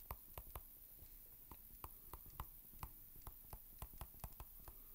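Faint, irregular light clicks and taps of a pen stylus on a tablet screen while writing by hand.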